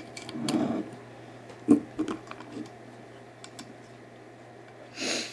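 Small metallic clicks and taps of an Allen wrench being fitted into and turning the hand-grip screws on the plastic-gripped frame of an airsoft M9 pistol, with one sharper click a little under two seconds in. A short soft hiss comes near the end.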